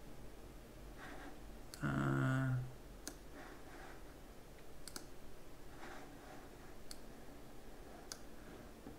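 Computer mouse clicks, about five sharp ones spread over several seconds, with a short hummed "mm" from a man about two seconds in, the loudest sound.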